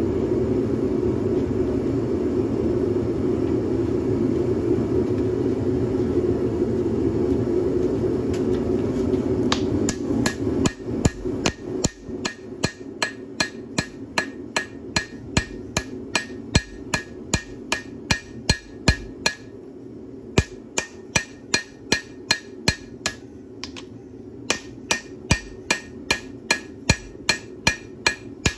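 A steady low roar, then from about ten seconds in a hand hammer striking red-hot leaf-spring steel on a wet anvil, about two blows a second with a bright ring and two short pauses. The water on the anvil is there to blast the scale off the steel.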